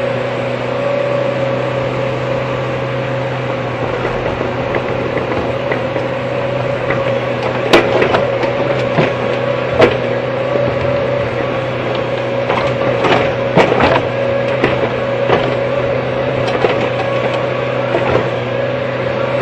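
Hydraulic excavator's diesel engine running steadily, with scattered sharp knocks and clanks from about halfway through.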